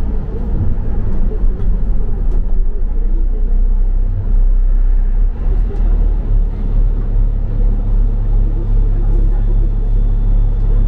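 Double-decker bus heard from on board: a steady low engine and road rumble, getting louder about four seconds in, with a faint high whine near the end.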